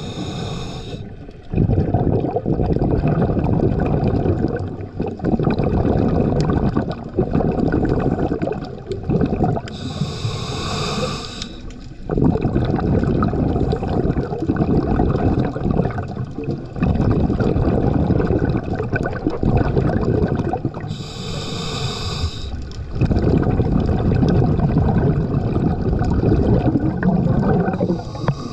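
Scuba regulator breathing heard underwater: a short hissing inhale roughly every eleven seconds (at the start, about ten seconds in, about twenty-one seconds in and near the end), each followed by several seconds of rumbling exhaust bubbles.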